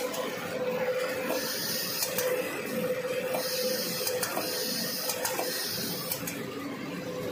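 Multi-lane V-fold facial tissue making machine running: a steady hum, with a high hiss that swells and fades three times and a few sharp clicks.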